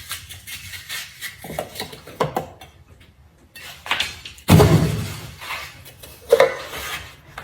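Kitchen clatter: scattered taps and knocks of utensils and dishes on a counter, with one heavy thud about four and a half seconds in and another sharp knock a little later.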